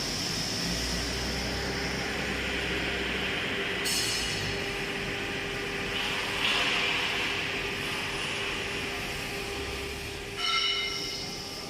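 Steady machine noise and hum from a freshly powered-up CNC router. There is a sharp sound about 4 seconds in, a hiss that swells about 6.5 seconds in, and a short tone lasting about a second near the end.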